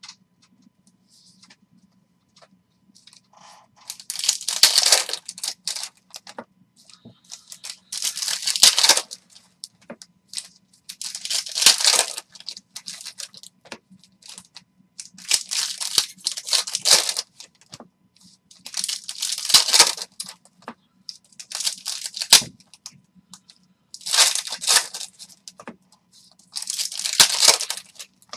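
Foil wrappers of 2019-20 Upper Deck hockey card packs being torn open and crinkled by hand, one pack after another, in bursts about every 3 to 4 seconds starting about 4 seconds in.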